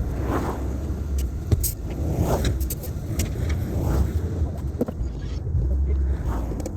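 Cat 308 mini excavator's diesel engine running steadily with a low rumble, with a few sharp clicks and knocks over it.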